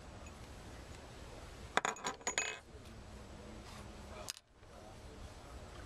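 Metal sampler plunger set down on a hard table: a quick cluster of metal knocks and clatter with a brief ring, about two seconds in, followed by a single sharp click a couple of seconds later.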